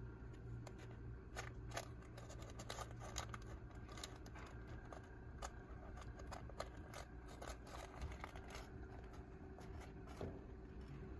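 Kittens moving about and scrabbling in their pen, making small irregular scratches, clicks and scrapes over a faint steady hum.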